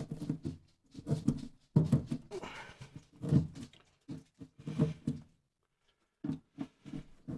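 A dog making repeated short, low vocal sounds, with a pause about two-thirds of the way through, mixed with small scraping clicks of an old furnace gasket being picked off by hand.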